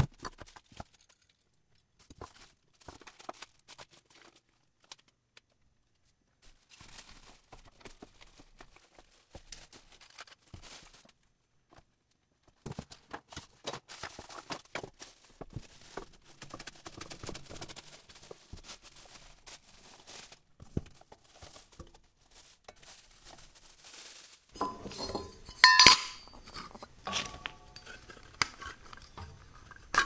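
Ceiling fan parts being unpacked by hand: clear plastic wrapping rustling and crinkling, with scattered clicks and clinks as metal and plastic parts are handled and set down. About three quarters of the way through there is a louder burst of clinking with a brief ringing tone.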